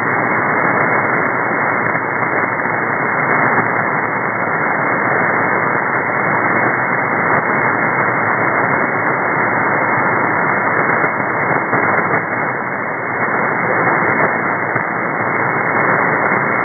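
Steady shortwave receiver hiss from an SDR in upper-sideband mode on the 4651 kHz aeronautical HF channel, with the audio cut off at about 2 kHz by the sideband filter. The channel is quiet between voice calls.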